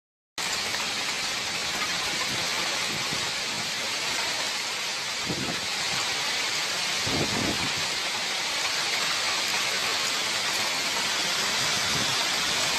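Heavy storm downpour: a dense, steady hiss of rain, with two brief low rumbles about five and seven seconds in.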